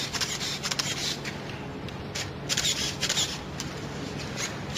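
Handheld camera shutter firing in several quick bursts of clicks, with a faint steady low hum underneath.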